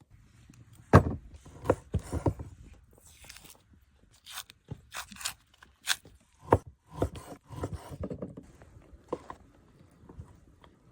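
Cooking gear being handled: an irregular series of sharp knocks, clicks and scrapes, the loudest about a second in.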